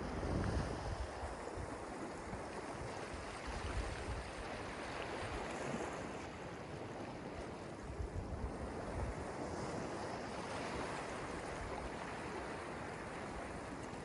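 Ocean surf: small waves breaking and washing up over sand and around rocks, a steady hiss of water that swells a little around the middle.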